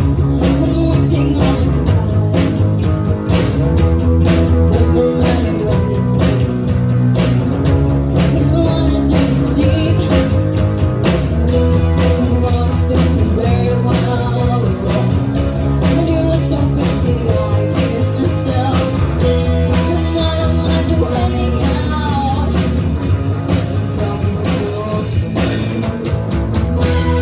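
Rock song with guitar and singing over a steady drum beat and heavy bass.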